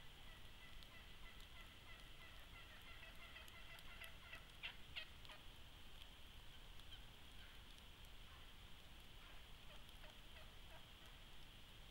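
Wild turkey tom gobbling, the spring breeding call, as a run of quick rolling notes in the first half, loudest about five seconds in, with fainter calls later, over a steady background hiss.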